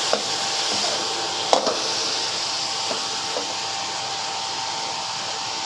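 Stir-frying in a wok: a steady sizzling hiss, with a few knocks and scrapes of the spatula against the wok in the first three and a half seconds.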